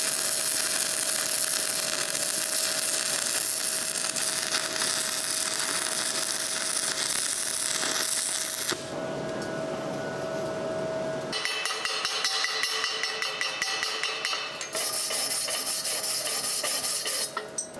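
Stick (MMA) arc welding with a 3.2 mm 6013 electrode at 120 A: the arc gives a steady crackling hiss that stops abruptly about nine seconds in. From about eleven seconds there is a run of quick sharp metal taps as the slag is cleaned off the weld bead.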